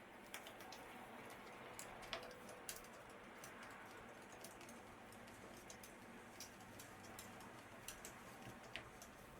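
Faint, irregular small clicks and ticks of a screwdriver taking out the single retaining screw of an old door lock cylinder.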